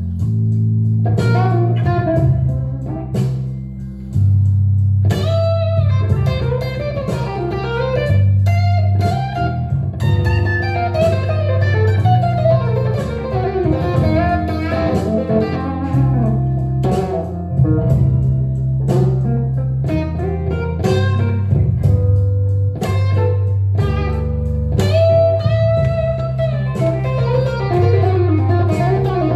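Telecaster electric guitar playing an improvised blues lead, with quick runs and bent notes, over a backing track with a steady bass line that changes note every couple of seconds.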